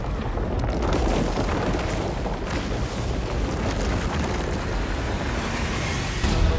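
Film sound effects of an earthquake: a loud, continuous rumble as the ground bursts open in plumes of dust, with a heavier boom near the end.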